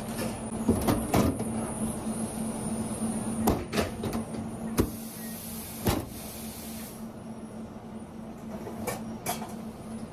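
Sandwich being put together by gloved hands on a paper wrapper on a stainless steel counter: scattered knocks and rustles over the steady hum of kitchen equipment, with a brief hiss near the middle.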